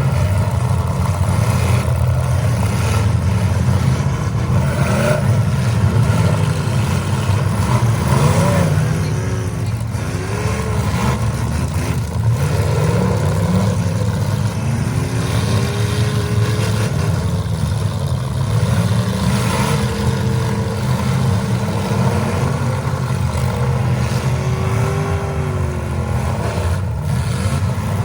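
Several demolition derby cars' engines running hard together, a dense low rumble with repeated revving that rises and falls in pitch.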